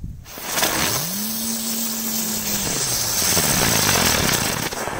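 Small ground firework burning on the ice: a loud spraying hiss starts suddenly. About a second in, a low buzzing tone rises, holds, then sinks away. The hiss cuts off near the end.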